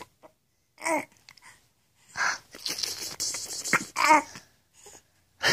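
Young baby laughing: short breathy bursts with a couple of brief high voiced squeals, about a second in and again near 4 seconds.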